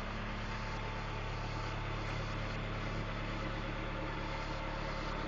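An engine idling with a steady, even low hum.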